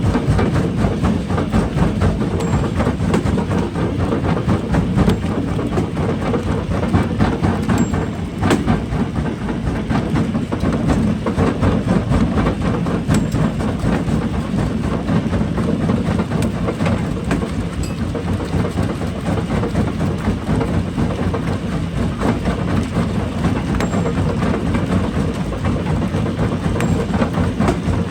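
Rock-crushing machinery running under load: a continuous heavy rumble and rattle of stone being broken, with many small knocks throughout.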